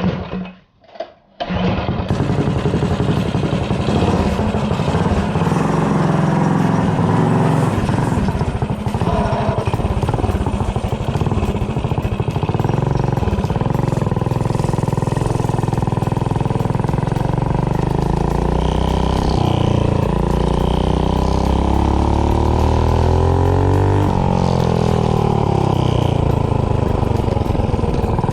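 Predator 212 single-cylinder four-stroke engine, fitted with a GX160 head, catches after a couple of short starting bursts and runs steadily; after about eighteen seconds the revs rise and fall several times.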